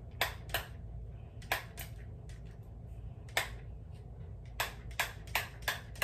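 Small pump spray bottle spritzing scalp oil onto the scalp: about ten short hissing sprays, a couple near the start and the rest in quick runs of three or four toward the end.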